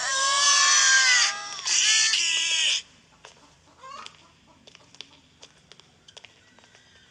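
Several children's voices crying out together in awe, in two long exclamations that fall in pitch, the second starting about two seconds in; then faint scattered clicks.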